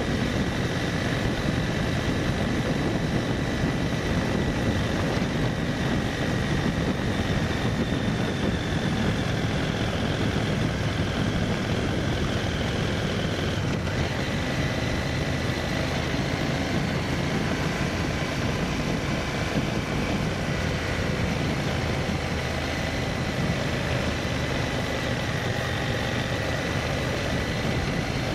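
A vehicle's engine and road noise while driving at a steady pace, with a thin high whine over the rumble that holds nearly steady.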